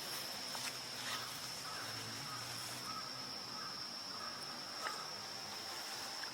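Insect singing a steady, unbroken high-pitched note, with a couple of faint ticks.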